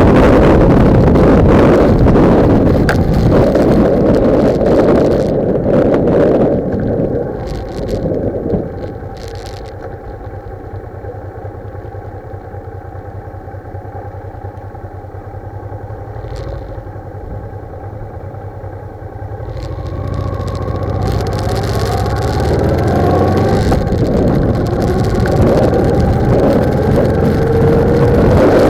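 Heavy wind buffeting on a motorcycle-mounted camera's microphone while riding. About a quarter of the way in it fades as the bike slows, leaving the motorcycle engine running low and steady. About two-thirds of the way through the wind builds again and the engine pitch rises as the bike speeds up.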